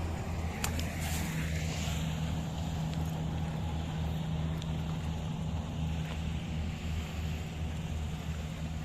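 Kubota DC-60 rice combine harvester's diesel engine running steadily, a constant low drone, with a few faint clicks over it.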